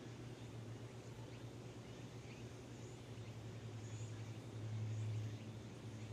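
Domestic cat purring steadily close to the microphone, a low pulsing hum that grows louder near the end, with faint high bird chirps behind it.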